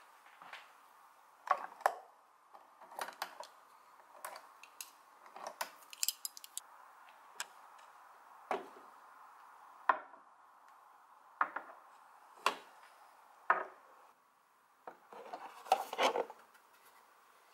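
Irregular sharp clinks and knocks of small hard objects being handled and set down, roughly one a second, some in quick pairs or clusters, over a faint steady background hum.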